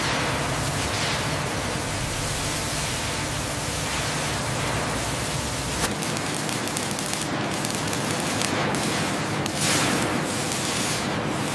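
Steady hissing, crackling noise of industrial plasma cutting and welding sparks. The low rumble under it drops away about six seconds in, where the sound shifts to robotic arc welding.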